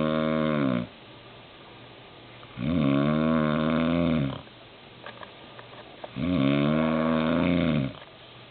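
A man snoring loudly and steadily: three long, droning snores come about every three and a half seconds, each rising at the start and sagging at the end, with quiet gaps between.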